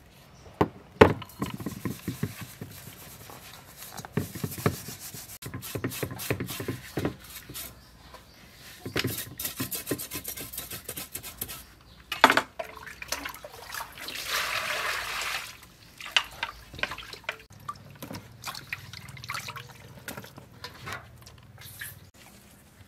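Tire track eels being scrubbed and rinsed by hand in a stainless steel bowl: wet rubbing and splashing with irregular knocks of fish and hands against the metal. One sharp knock comes about halfway through, followed by a steady splash of water lasting about a second and a half.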